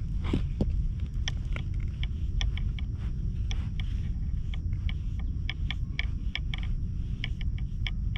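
Wind rumbling on the microphone, with a run of small sharp ticks at irregular spacing, about two or three a second.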